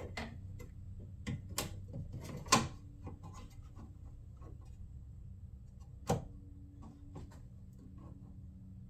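Scattered clicks and light knocks of small shroud hardware pieces being handled and fitted, with sharper knocks about one and a half, two and a half and six seconds in, over a steady low hum.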